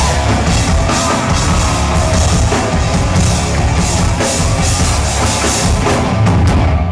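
Live rock band playing an instrumental passage: electric guitar through amplifiers over a full drum kit with bass drum and cymbals.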